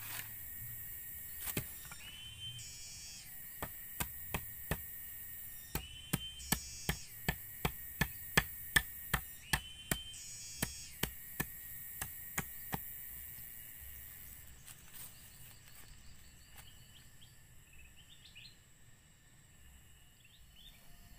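A machete chopping a wooden branch: a run of sharp strikes, sparse at first, then about two a second, which stops a little past halfway. Shrill high-pitched calls repeat in the background.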